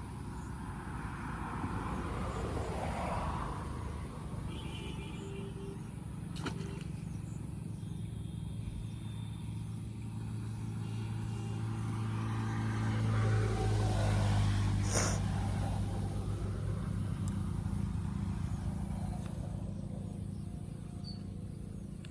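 A motor engine's steady low hum that swells to its loudest a little past the middle and then eases off, with two sharp clicks along the way.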